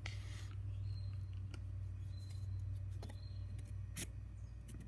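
A few faint clicks and knocks as wooden and PVC sill pieces are handled on a table saw's top, over a steady low hum.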